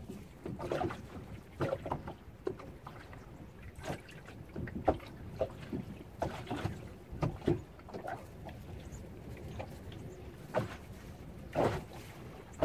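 Small waves lapping and slapping irregularly against the hull of a small boat, with wind rumbling on the microphone.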